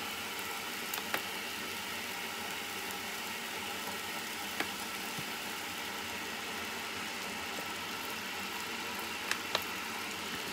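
Homemade longanisa sausages sizzling steadily in a frying pan, the water they were simmered in boiled away, with a few small clicks.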